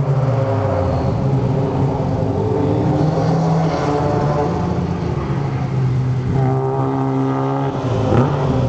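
Drift car engine revving hard, pitch rising and falling as the driver works the throttle through the slides. Near the end it holds one steady pitch for about a second, then drops sharply.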